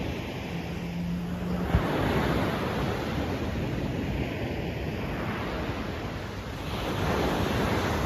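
Ocean surf breaking and washing up a beach, a steady rush that swells about two seconds in and again near the end as waves come in.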